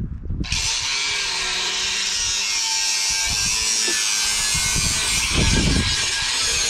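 A power tool starts suddenly about half a second in and runs steadily with a harsh, hissy whir, with a few low knocks underneath.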